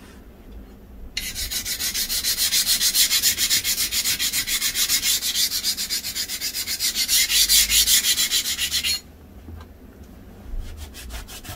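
Hand file scraping along the edge of a cast-iron gearbox top cover in quick, even strokes; it stops about nine seconds in, and a few more strokes follow near the end.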